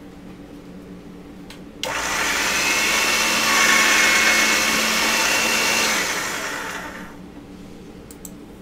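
Small electric motor whirring, most likely a motorized pasta machine rolling the clay and texture sheet. It starts suddenly about two seconds in, runs for about four seconds, then winds down over about a second.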